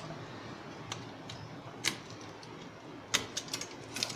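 Scattered sharp clicks and light knocks from a disassembled LCD monitor's sheet-metal chassis and cable connectors being handled. The loudest knock comes about two seconds in, and a quick run of clicks follows a little after three seconds.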